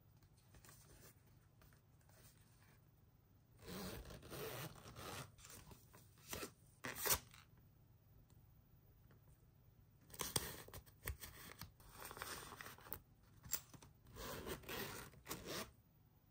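Metal zipper of a zip-around wallet being pulled open in a few rasping strokes, then, after a pause, zipped shut again, with a few small clicks.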